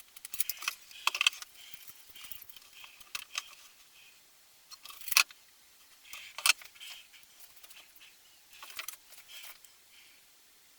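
Scattered light clicks, rattles and short scrapes of small hard parts being handled during hand work, with a few sharper knocks about five and six and a half seconds in.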